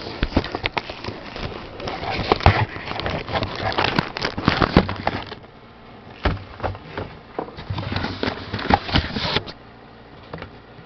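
Plastic and cardboard packaging crackling and rustling as a hair dryer is pulled out of its box, dense for the first five seconds, then in sparser handfuls, settling down near the end.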